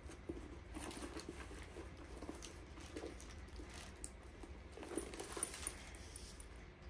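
Faint rustling and small clicks of a purse and its strap being handled while the strap fitting is turned on, a little louder about five seconds in.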